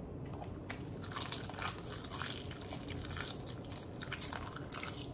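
A person chewing a tortilla-and-seaweed wrap close to the microphone: a run of small, irregular crunches.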